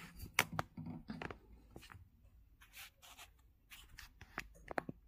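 Faint handling noise: scattered clicks and short rustles of hands working among loose wires and connectors while power leads are connected to the 3D printer's controller board.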